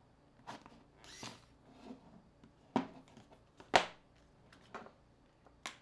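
Small hand tools and a smartphone being handled on a tabletop during a phone teardown: scattered sharp clicks and taps, the loudest about three and a half seconds in, with a short rustle about a second in.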